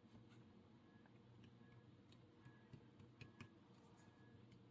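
Near silence: room tone with a few faint, irregular light ticks, about eight scattered through.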